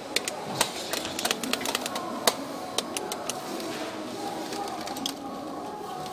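Irregular sharp clicks and clacks, about a dozen in a few seconds, from hard plastic and metal tools being handled at a shop display. Behind them is a steady hubbub of shop background noise.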